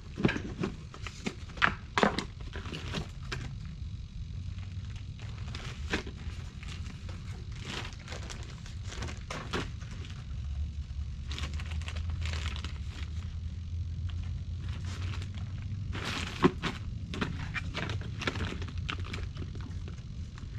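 Scattered clicks, knocks and crinkles of hands working on a foam RC airplane at a bench, with one sharper knock about three-quarters through. A low rumble runs underneath, stronger from about halfway.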